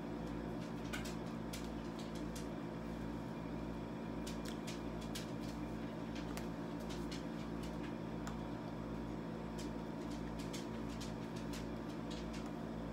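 Steady low room hum, with faint irregular clicks scattered through it.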